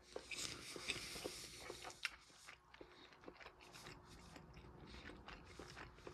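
A person biting and chewing food close to the microphone. The chewing is faint, denser and crackly for the first two seconds, then thins to small scattered clicks.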